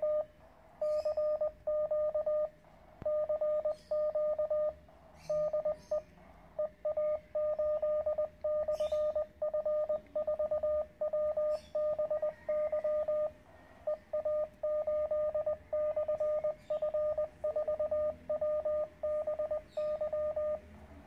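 Morse code sidetone from a Weber MTR CW transceiver: a single steady beep keyed on and off in dots and dashes, as the operator sends on the air.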